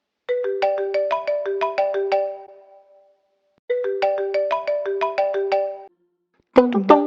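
An Apple iPhone ringtone: a short melody of quick, bright, plucked-sounding notes, played twice with a pause between. Near the end, a louder, lower-pitched rendition of a tune begins, with hard percussive hits on the beats.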